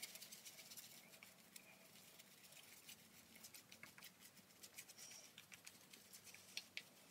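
Shaving brush working lather onto a stubbled face, relathering for a second razor pass: a faint, quick, irregular crackle and scratch of bristles and lather on skin.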